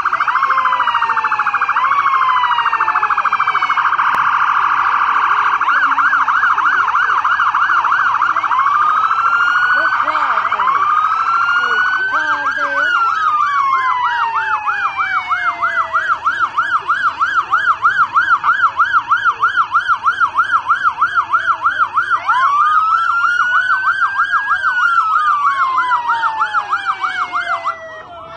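Several emergency-vehicle sirens sounding at once, slow rising-and-falling wails overlapping a fast warbling yelp. The loudest one cuts off shortly before the end.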